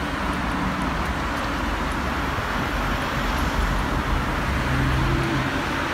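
Steady street traffic: cars passing on a multi-lane city road, tyres and engines making an even rush, a little louder with one vehicle's engine hum about five seconds in.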